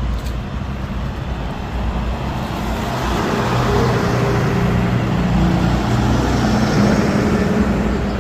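Motor vehicle engine and road noise, a steady low rumble with an engine hum that gets louder about three seconds in.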